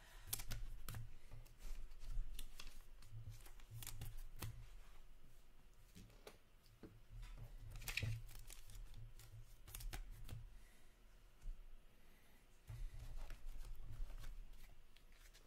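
Hockey trading cards being handled and flipped through by hand: light rustling and sliding of cards and clear plastic, with scattered soft clicks and taps against the tabletop.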